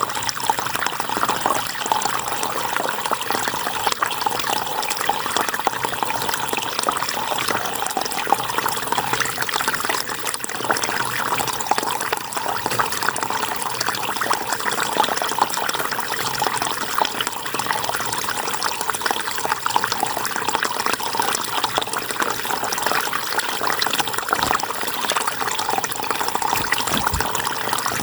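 River water flowing and splashing over rocks, a steady rush of babbling water.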